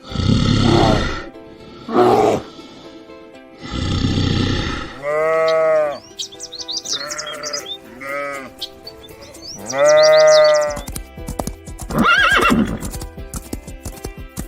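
A series of farm animal calls over background music. Rough, noisy calls come first, then several drawn-out calls that rise and fall in pitch, with quick high bird chirps in the middle.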